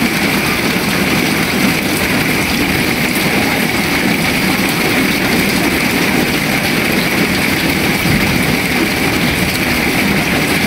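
Steady, unbroken rush of heavy rain falling on a flooded street and its floodwater.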